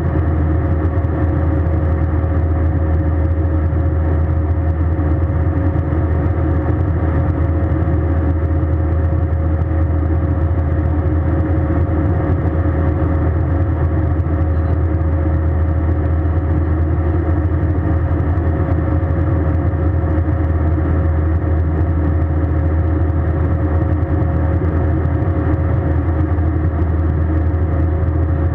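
Steady cabin drone of an Airbus A320, heard from inside the cabin: jet engine and airflow noise with a strong low hum and a steady mid-pitched tone, unchanging throughout.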